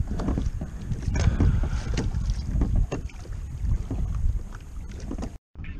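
Water slapping and sloshing against a plastic kayak hull on open ocean, with wind buffeting the microphone. The sound cuts out for a moment near the end.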